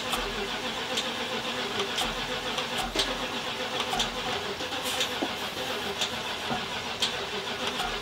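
A motorhome's gasoline engine being cranked over by the starter without catching, with a sharp tick about once a second. It is a no-start: it cranks but will not fire and run on its own.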